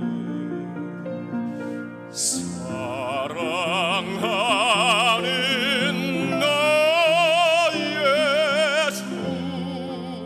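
Male soloist singing a Korean hymn with wide vibrato, holding long notes over a sustained accompaniment. The voice enters strongly about two seconds in and breaks off about nine seconds in, leaving the accompaniment.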